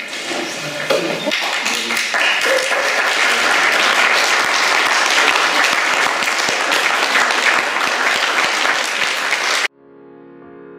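Audience applauding, swelling over the first couple of seconds and then holding steady. Near the end it cuts off abruptly and soft piano music begins.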